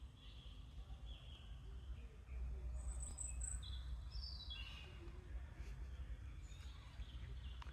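Wild birds calling and chirping: scattered short chirps, a quick high triple note about three seconds in, and a falling run of notes about four seconds in, over a steady low rumble.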